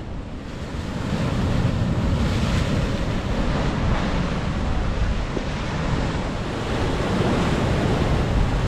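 Waves surging and breaking on a rocky shore in a heavy swell, with wind buffeting the microphone.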